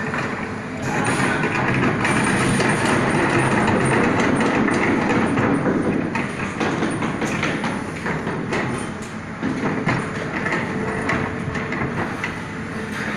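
Hitachi excavator running, with a dense metallic clattering and rattling over the engine's steady note. It is loudest in the first half and eases off somewhat after the middle.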